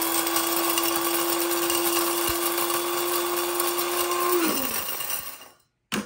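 Electric blade spice grinder running steadily as it grinds dried wild cherry bark, a constant whirring hum. About four and a half seconds in the motor is released and winds down, its pitch falling as it coasts to a stop.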